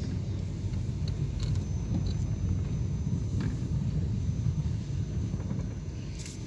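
Car driving slowly, a steady low rumble of engine and road noise heard from inside the cabin.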